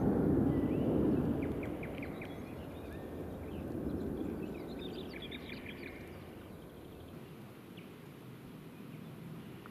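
Small songbirds chirping and singing in quick short notes, densest about five seconds in, over a low rushing background noise that swells at the start and again around four seconds in, then fades.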